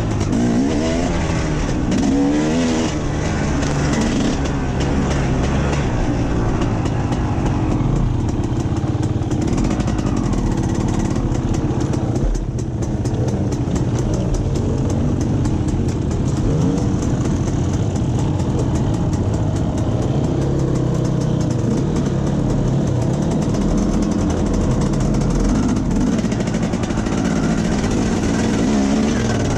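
Two-stroke enduro dirt bike engine, a KTM 250 EXC, running and revving up and down as it is ridden over rough trail.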